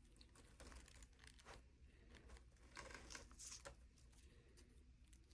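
Very faint rustling and soft handling noises, a few brief scrapes and crinkles, mostly in the middle, from flowers and fabric pads being handled as a flower press is layered.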